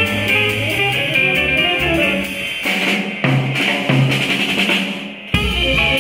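Jazz quartet playing live, with the drum kit prominent. The low end drops out for a couple of seconds past the middle, and the full sound comes back in near the end.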